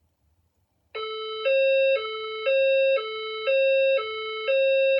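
System Sensor SPSR fire alarm speaker strobe sounding a hi-lo alert tone: starting about a second in, it alternates between a lower and a higher note every half second, with the higher note louder. This is the signal tone of a voice evacuation alert cycle, which the recorded message explains as a report of an event in the building awaiting verification.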